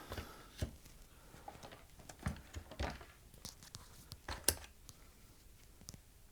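Faint, scattered small clicks and light scrapes of multimeter probe tips being placed on diodes on a TV power-supply circuit board, the sharpest click about four and a half seconds in.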